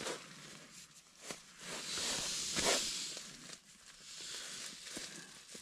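Rustling of nylon fabric and clothing as a person shifts about and pulls on a pair of down slippers, swelling into a louder rustle about two seconds in, with a few light knocks.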